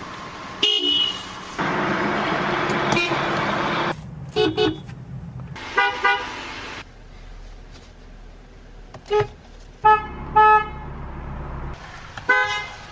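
Car horns from several vehicles, including a Honda, a Toyota and a Hummer H2, sounding in a string of about ten short toots at different pitches. A stretch of steady loud noise sits between the first toots.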